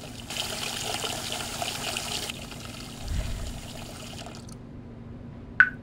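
Water pouring and trickling into a bathtub. It is strongest in the first two seconds, then eases off and fades out about four seconds in. A short, sharp blip near the end is the loudest moment.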